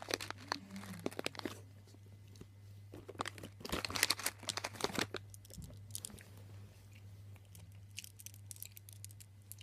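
Crinkling and tearing of sweet packets being handled and opened, with small sharp clicks, in three bursts with pauses between.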